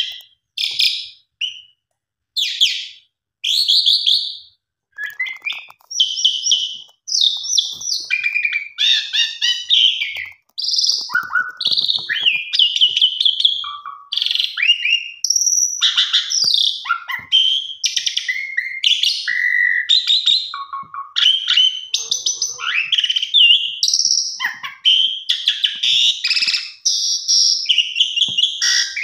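Asian pied starling (jalak suren) singing in full, vigorous song. It gives short high phrases with gaps between them at first, then from about five seconds in a dense, almost unbroken run of varied high notes.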